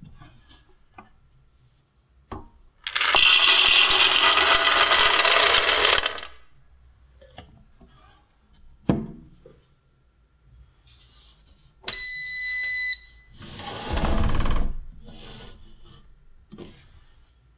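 Raw peanuts poured into a bread maker's baking pan, a rattling rush lasting about three seconds, followed by a few knocks. About twelve seconds in the bread maker gives a one-second electronic beep, then comes a lower rumbling handling noise as the lid is shut.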